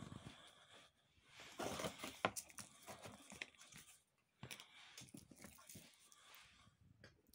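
Comic books and their packaging being handled: soft rustling with a few sharp clicks, loudest about two seconds in and again from about four and a half seconds.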